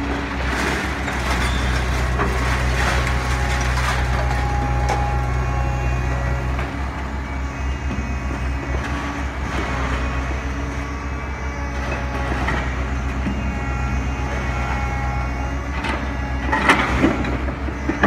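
Diesel engine of a grapple-equipped material-handling excavator running steadily while loading scrap metal, with scattered clanks and scrapes of scrap in the grapple. A couple of louder metal clangs come near the end.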